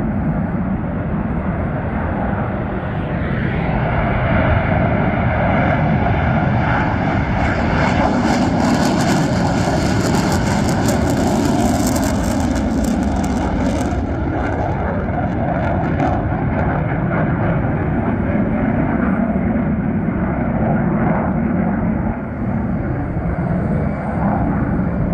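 McDonnell Douglas F-15C Eagle's twin turbofan engines on an afterburner takeoff: loud, steady jet noise that swells with a crackling hiss near the middle as the jet passes, then eases back to a steady rumble.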